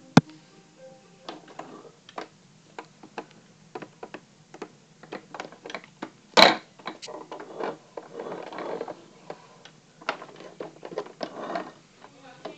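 Irregular clicks and knocks of a plastic toy fire truck being handled, with a sharp knock right at the start, a louder one about six seconds in, and rustling stretches near the end.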